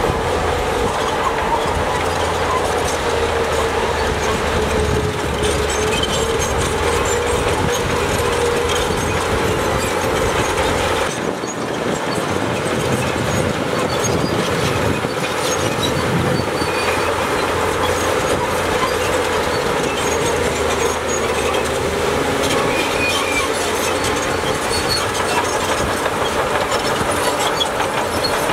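Shantui crawler bulldozer working: its diesel engine running steadily under load, with the steel tracks clattering and a steady squealing whine from the running gear. The sound drops briefly about eleven seconds in.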